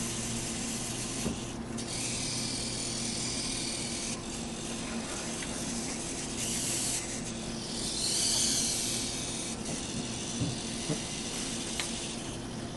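Small hobby servo motors of Boe-Bot robots whirring with gear noise in several spurts of one to a few seconds as the robots drive and work their grippers.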